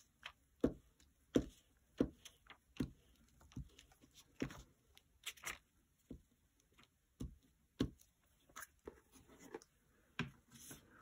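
Glue stick rubbed over a sheet of paper on a cutting mat in short, irregular strokes, each a brief scrape or tap, roughly one or two a second.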